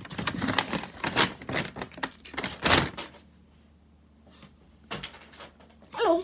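Plastic fidget toys being handled, with a striped pop tube stretched and squashed, giving about three seconds of ratchety, clattering plastic noise. Near the end there is a short falling squeal.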